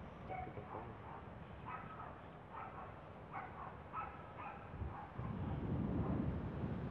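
A string of short, faint, pitched animal calls repeated every half second or so. From about five seconds in, a low rumble of wind on the microphone joins them.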